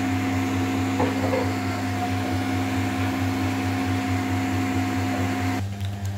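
Steady whir and hum, with two constant tones, from a 1 kW VHF linear amplifier powered on and idling with its cooling fan running. The whir and tones cut off abruptly about five and a half seconds in, leaving a low hum.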